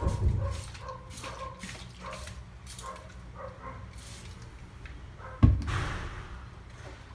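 A large sheet of plastic film being handled: a dull thump just after the start, and a louder, sharper thump about five and a half seconds in, followed by about a second of rustling. Faint, short whining tones recur through the first few seconds.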